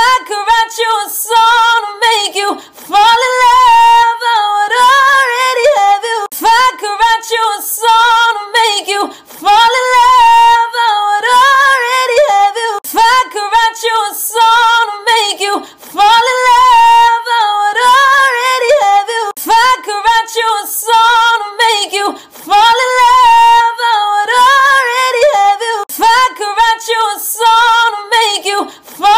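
A woman singing unaccompanied in a high voice, holding and bending notes in long phrases with short breaks between them.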